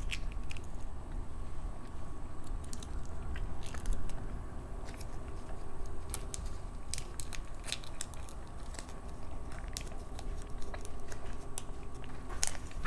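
A person chewing a soft fruit gummy candy, with scattered small wet mouth clicks.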